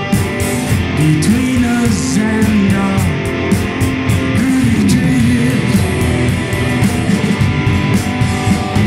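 Live rock band playing: two electric guitars, one a red Gibson SG, over drums with steady cymbal strokes, and a man singing lead.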